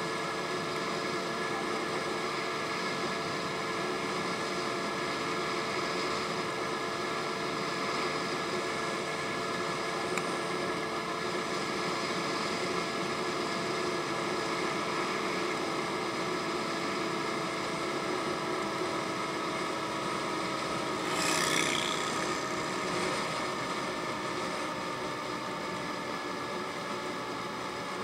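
Honda Ruckus scooter engine droning at a steady cruise over wind and road noise. A brief rushing whoosh comes about three-quarters of the way in, and the engine note drops slightly after it.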